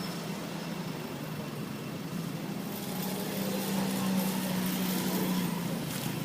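A motor vehicle's engine running with a steady low drone that grows louder about three seconds in and eases off near the end.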